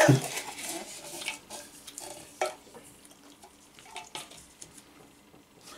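Folded paper slip being taken from a cup and unfolded by hand: soft paper rustling and crinkling with a few small sharp clicks.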